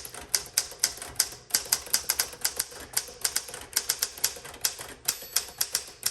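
1960 Smith-Corona Sterling manual typewriter being typed on steadily: a quick, uneven run of key strikes, about four to six a second, each typebar snapping against the platen with a crisp tick.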